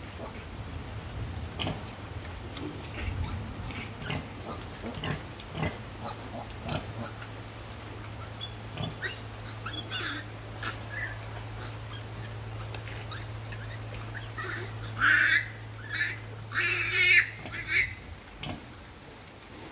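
Piglets suckling from a nursing sow, with scattered small squeaks and clicks as they jostle at the teats, then a few loud, short piglet squeals about three-quarters of the way through.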